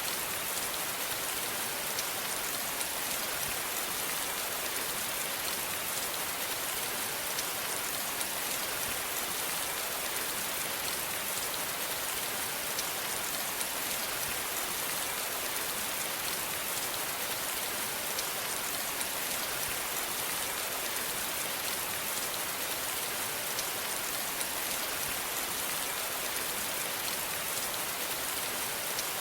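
Steady rainfall: an even hiss of rain with many fine drop ticks, unchanging throughout.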